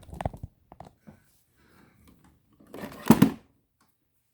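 Handling noise from the battery pack and test gear: a quick cluster of knocks and clicks at the start, a few lighter clicks about a second in, then a louder brief scrape or rustle about three seconds in.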